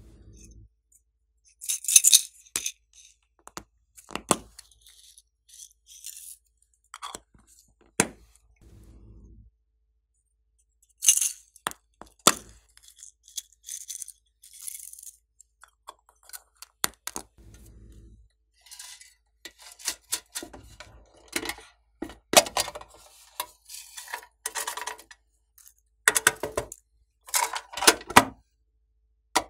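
Sequins and small toppings rattling in little plastic cups as they are shaken and poured out, with clicks of plastic lids and cases being handled. A run of short clicks and rattles, loudest about two seconds in and again near the end.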